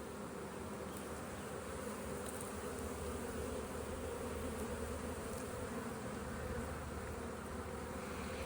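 Many honeybees buzzing in a steady, even hum around an opened hive during an inspection.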